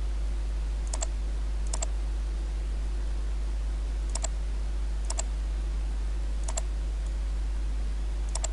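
Computer mouse clicked six times at uneven intervals, each click a quick press-and-release pair. A steady low electrical hum runs underneath.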